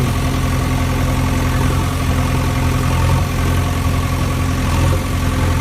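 Heavy vehicle's diesel engine idling steadily, a constant low running note with no change in speed.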